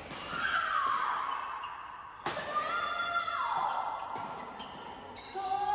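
Court shoes squeaking on an indoor court floor, two squeals sliding down in pitch, with a sharp racket hit a little past two seconds in, as during badminton play.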